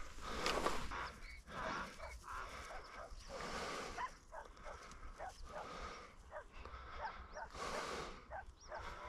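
A Labrador retriever sniffing and panting in short, irregular bursts while working a scent.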